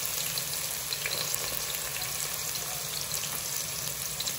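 Chopped onions, just added to hot oil with whole spices, sizzling steadily in the pan with faint scattered crackles.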